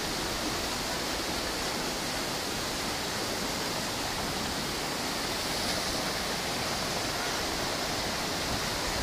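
Rushing water of the Düden River's rapids and waterfall: a steady, even roar of white water that does not change over the whole stretch.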